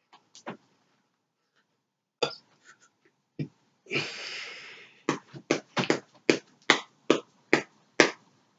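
A lidded dip can, holding wintergreen dip tobacco mixed with coffee and sugar, being shaken by hand: a brief rattle, then the lump inside knocking against the can about two to three times a second.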